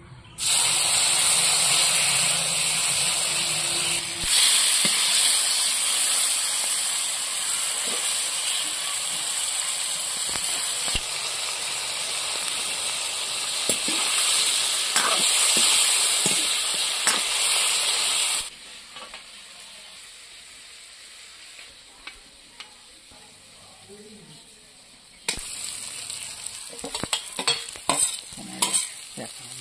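Eel pieces frying in hot oil in a steel wok, a loud steady sizzle as they are stirred with a spatula, starting half a second in and dropping away about 18 seconds in. About 25 seconds in, a fresh sizzle starts as sliced onion and ginger go into the oil, with sharp clicks and scrapes of the spatula and plate against the wok.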